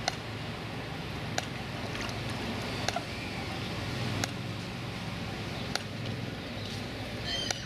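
Steady outdoor background noise with a low hum, broken by a sharp click about every second and a half. A small bird chirps briefly near the end.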